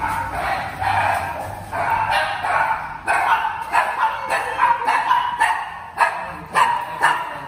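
A dog barking, in repeated barks about every half second from about three seconds in.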